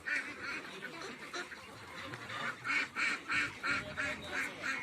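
Flock of domestic geese honking: a few scattered calls, then a run of quick repeated honks, about three a second, in the second half.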